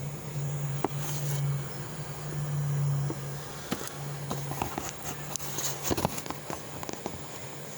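A steady low hum with scattered light clicks and taps of handling. The clicks bunch together in the second half, and the hum fades about six seconds in.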